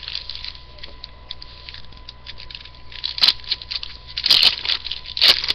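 Trading-card pack and cards being handled: a run of light rustles and clicks, with a few louder crinkles about three, four and a half, and five seconds in, as the next foil pack is opened and its cards sorted.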